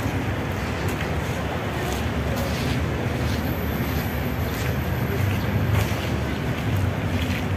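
Steady low rumbling outdoor background noise with faint, irregular light ticks.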